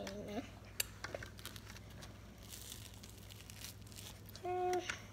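Faint crackling and tearing as a slice of toast is pulled apart by hand. A child gives a brief hum at the start and a louder, held 'mmm' near the end.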